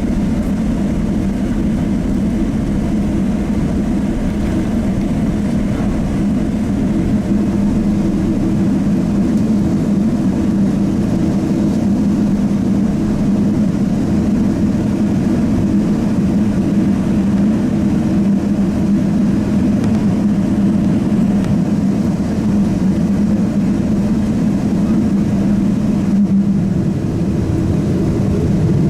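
Cabin noise inside a Boeing 777-300 heard from a window seat: a steady jet-engine and airflow drone with a constant low hum.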